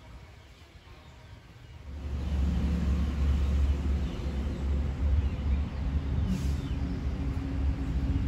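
An engine running close by: a low, steady rumble that comes in about two seconds in and holds.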